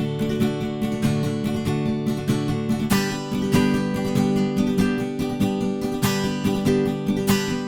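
Background music: acoustic guitar strumming chords at an even pace.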